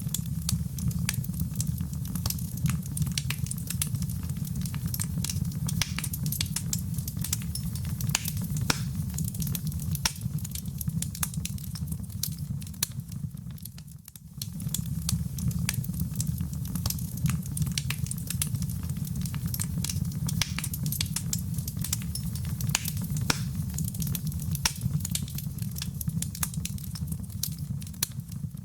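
Wood fire in a fireplace crackling, with dense sharp pops and snaps over a steady low rumble of the flames. The level dips briefly about halfway through.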